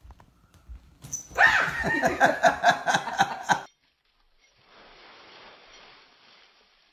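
A dog yapping rapidly and excitedly for about two and a half seconds, then cutting off; after that only a faint, steady hiss.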